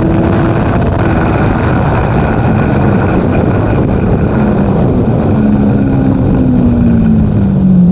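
Aprilia Tuono V4 1100's V4 engine running at a steady road speed under heavy wind rush on the microphone. The engine note holds steady, then sinks slowly through the second half and drops quickly near the end as the throttle comes off.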